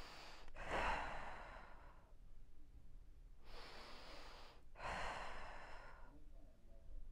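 A woman breathing slowly and deeply through a held exercise, with three long audible breaths, out, in and out again.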